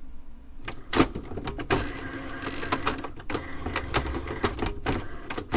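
HP Deskjet 3740 inkjet printer mechanism starting up about a second in with a sharp clack, then running busily with whirring and rapid irregular clicks.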